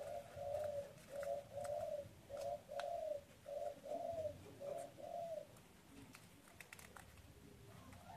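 A dove cooing: a run of about eight short, low coos, ending a little over five seconds in.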